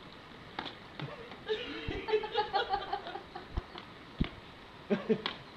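A person laughing in a run of short, rhythmic bursts lasting about two seconds, with a few sharp knocks before and after.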